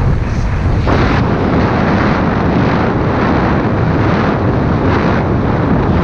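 Loud, steady wind rushing over a GoPro action camera's microphone as a mountain bike descends a tarmac road at speed, with the low rumble of its knobbly tyres on the asphalt.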